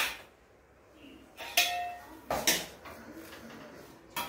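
Metal spoon knocking against a steel pan and steel plates as food is served: four separate clinks, the one about a second and a half in ringing briefly.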